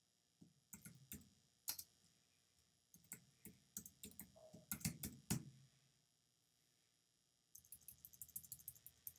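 Typing on a computer keyboard: three bursts of clicking keystrokes with pauses between, the last a quick run of taps near the end.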